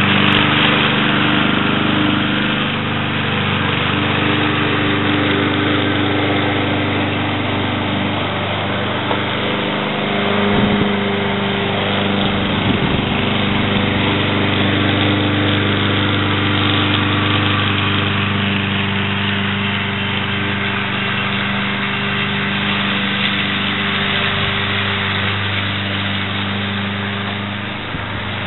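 Ariens Blade Runner lawn mower's Kohler Courage 173cc single-cylinder engine running steadily under load as it mows grass and bags dry leaves, a little fainter near the end as the mower moves away.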